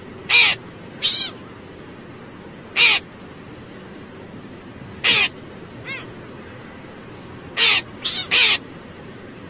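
A cat giving short, high meows, about eight of them at uneven intervals, over a steady background hiss.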